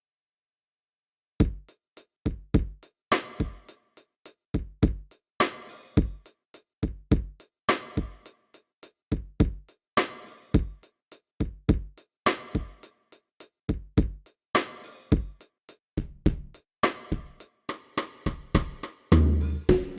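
Sampled drums from a Ketron SD90 SoundFont playing a repeating programmed beat, starting about a second and a half in with crisp hits in a pattern that repeats every couple of seconds. Near the end a held low note and a busier change in the pattern come in.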